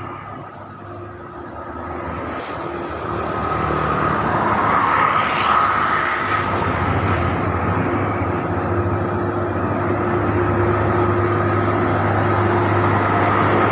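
Heavy diesel vehicles labouring up a steep grade under load. The engine noise builds over the first few seconds as one passes close, then holds loud and steady with a low engine drone and a steady whine.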